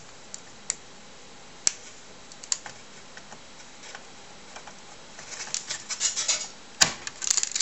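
Small clicks and scrapes as the Grafyx Solution replica graphics board is pressed and worked onto the connector of a TRS-80 Model 4 motherboard. The clicks come singly at first, thicken into a busy run of clicking and scraping about five seconds in, then end in a sharp click near the end as the board seats.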